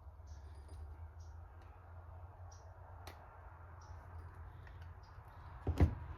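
Scattered light clicks and taps of small carburetor parts and linkage being handled, with one louder knock near the end, over a steady low hum.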